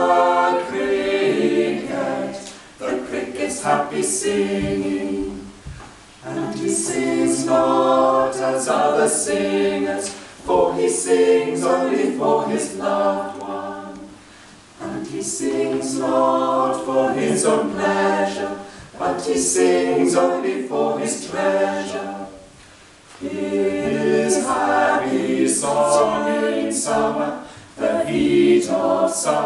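Small mixed-voice choir of men and women singing a cappella, in phrases of a few seconds, each followed by a short break.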